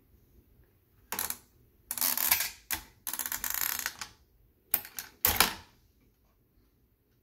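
Handle of a 1950s Duncan Miller Model 50 parking meter being cranked: several short bursts of metallic ratcheting clatter from the all-metal coin and timer mechanism as the time is set, the last and loudest about five seconds in.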